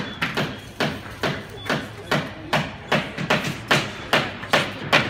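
Steady hammering, a hammer striking wood about twice a second, as nails are driven into a wooden toy kit.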